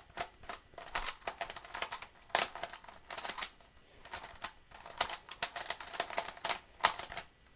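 Plastic clicking and clacking of a YuXin Lamp transparent 3x3 puzzle cube being turned fast by hand, its layers snapping round in quick, irregular runs of turns with short pauses between.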